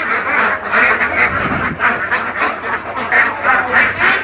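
A large flock of domestic ducks quacking together, many calls overlapping without a pause.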